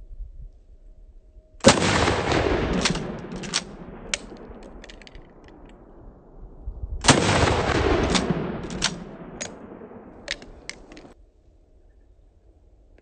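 Two 12-gauge shotgun blasts from a Mossberg 500 pump-action firing 3-inch 00-buckshot, about five and a half seconds apart. Each shot has a long rumbling decay and a few sharp cracks after it.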